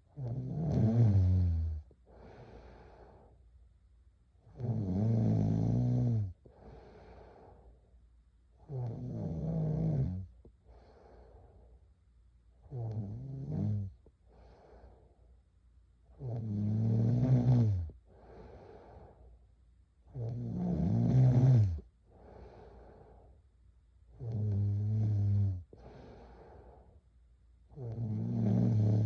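A girl snoring in her sleep: a loud snore about every four seconds, each followed by a quieter breath.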